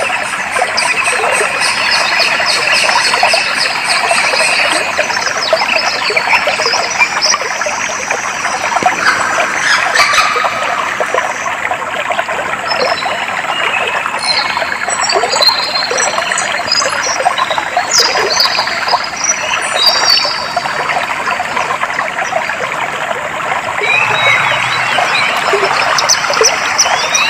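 Clear stream water trickling and babbling steadily, with several small birds singing high, chirping phrases over it, busiest in the middle stretch.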